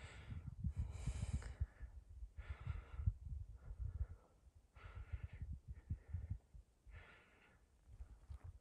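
Breathing close to the microphone: a series of short, noisy breaths in and out, about one every one to two seconds, over a low rumble.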